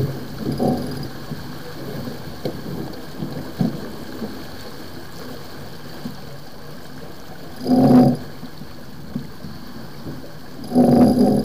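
Wind and water rushing past a sailboat under spinnaker, a steady hiss, with two short louder bursts about eight and eleven seconds in.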